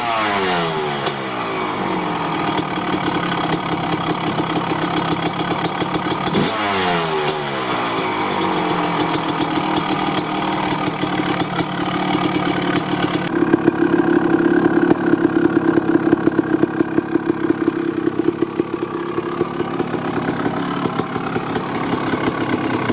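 1995 Honda CR250's single-cylinder two-stroke engine blipped twice, near the start and about six seconds in, the revs falling back down each time. It then settles into a steady, pulsing idle.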